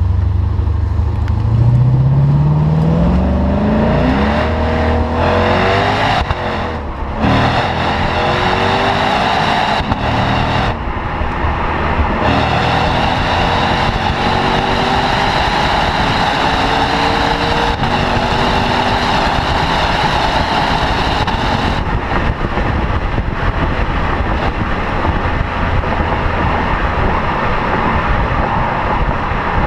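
2016 Lexus RC F's 5.0-litre V8 exhaust under acceleration. The revs climb for the first few seconds, with gear changes around four and seven seconds in, then settle into a steady drone with road noise.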